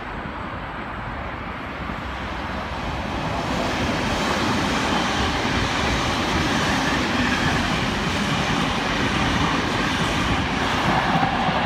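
Double-deck electric passenger train approaching and running into the platform, its rumble growing louder over the first few seconds and then holding steady. A steady high whine comes in near the end.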